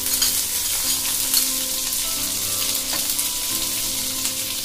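Chopped garlic frying in hot oil in a nonstick pan: a steady sizzle dotted with fine crackles.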